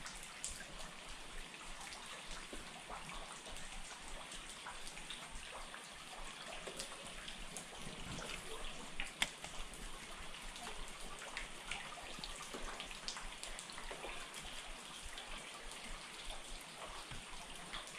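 Rain falling on a river: a steady hiss with many small, scattered taps of drops hitting the water, one a little louder about nine seconds in.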